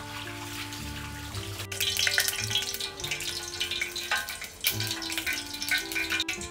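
Background music with held, stepping low notes. Under it, water runs from a tap into a sink for about the first second and a half, then gives way to scattered light clicks and knocks.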